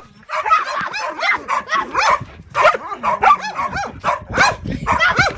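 A dog barking and yipping in rapid, continuous bursts of short barks: excited guard-dog barking at a person play-acting an attack on its owner.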